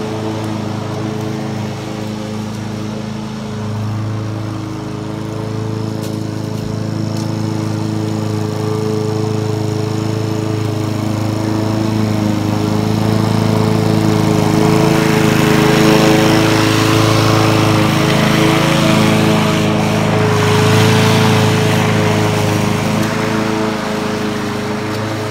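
Honda HR17 rotary lawn mower's petrol engine running steadily under load while it cuts grass. It grows louder through the middle as the mower passes close, then eases off again near the end.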